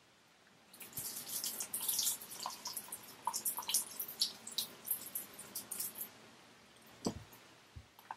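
Rinsing at a bathroom sink during a straight-razor shave: irregular splashing of water for about five seconds, followed by a knock about seven seconds in and a lighter one near the end.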